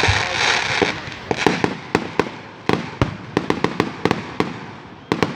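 Fireworks fizzing with a dense hiss for about the first second, then crackling in a run of many irregular, sharp pops.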